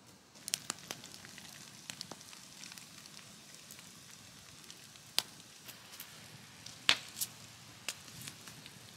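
Jarrah-wood campfire crackling: a scatter of small sharp pops and snaps over a low hiss, with a few louder cracks.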